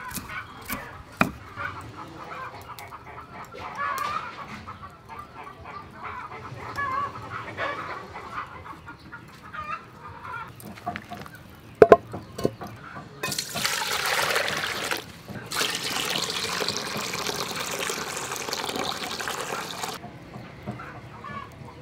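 Chickens clucking in the background over food preparation: a few knife chops on a wooden board at the start and a sharp knock near the middle. A steady rushing hiss fills most of the second half.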